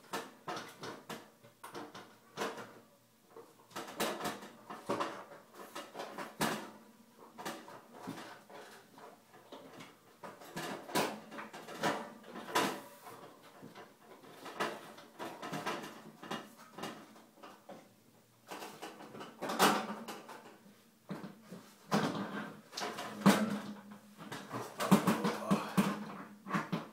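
Stiebel Eltron CK15E wall heater's housing being worked onto its wall bracket by hand: scattered knocks, clicks and scraping of the housing against the bracket and wall, coming thicker near the end.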